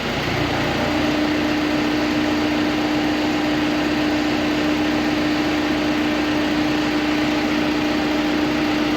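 Tractor with a hedge cutter hitched, running steadily, with a constant whine that comes in about half a second in and holds.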